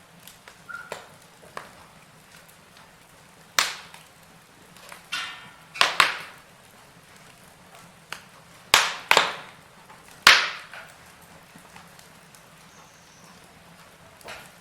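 Wood fire burning in a fireplace, with irregular sharp crackles and pops from the burning logs, several of them loud, over a faint low hiss.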